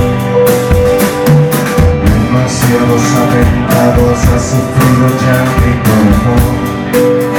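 A live rock band playing an instrumental passage: guitar over drums, with cymbal and drum hits keeping a steady beat and held notes running underneath.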